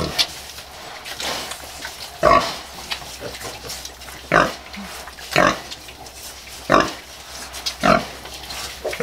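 A nursing sow grunting in short, regular grunts about once a second, her piglets at her teats.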